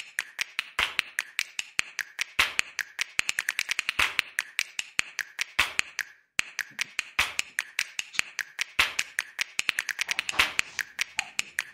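Rapid, irregular clicking like keys on a keyboard being typed, several clicks a second, with a short pause about six seconds in.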